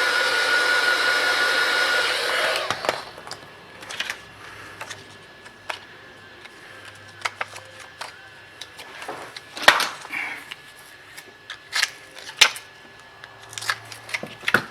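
Hot air gun blowing on the tablet glass, switched off about two and a half seconds in. Then scattered light clicks and scrapes of a plastic card and blade working under the glass edge, cutting through the heat-softened screen adhesive.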